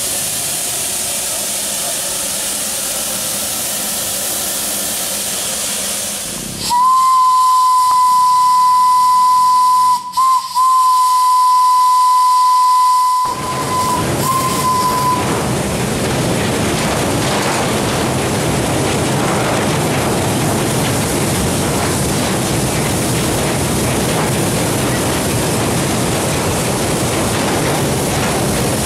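Orenstein & Koppel narrow-gauge steam locomotive hissing steam from its cylinder drains, then its steam whistle sounding one steady blast of about six seconds, broken twice for an instant, followed by a short toot. After that a steady rushing noise as the engine runs along.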